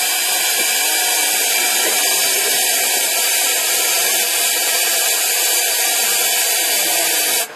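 A power tool runs steadily as it cuts or drills into an elephant's tusk during tusk extraction, a loud, even grinding hiss. It starts abruptly and stops abruptly near the end.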